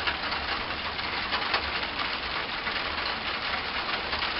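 Freezing rain falling steadily, a dense patter of fine drops.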